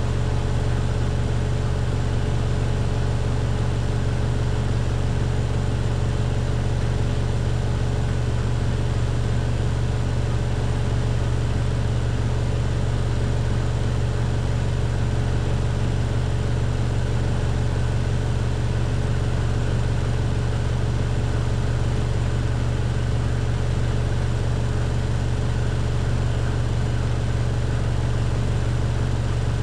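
Miele PW6055 professional washing machine holding its 1400 rpm final spin: a steady low hum with a constant whine above it, unchanging throughout.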